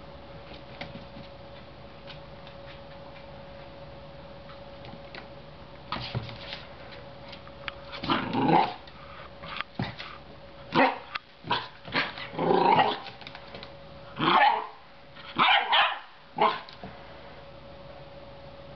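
Belgian Shepherd Groenendael puppy barking: after a quiet start, a run of about eight short, loud barks, some in quick pairs, comes from about eight seconds in and stops a couple of seconds before the end. A faint steady hum runs underneath.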